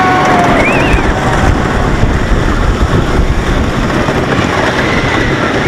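Great Coasters International wooden roller coaster train running fast along its wooden track, a loud, steady low rumble, with riders' yells and screams rising over it briefly near the start and again toward the end.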